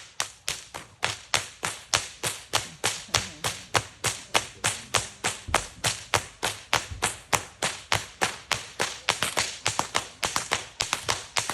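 A whip cracked over and over in a quick, regular run of sharp cracks, about four or five a second, in the 'hoof beats' routine that imitates a horse's gait. Near the end the cracks come faster and in uneven groups, like a gallop.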